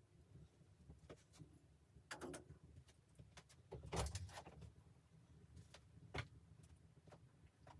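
A few faint, scattered knocks and clunks over a low rumble, the loudest a short cluster about four seconds in, with a single sharp click a couple of seconds later.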